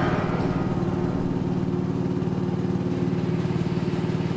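Small wooden boat's engine running steadily, with a fast, even pulse.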